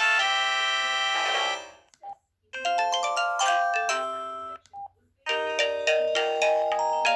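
Samsung SGH-E330 mobile phone playing short polyphonic tone melodies through its speaker, one after another: one ends about a second and a half in, the next runs for about two seconds, and a third starts near the end. A short single beep sounds in each gap between the tunes.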